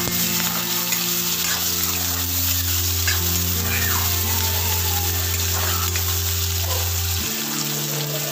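Freshly added sliced onions, still pale, sizzling in hot oil in a kadai, with a spatula stirring and scraping them around the pan.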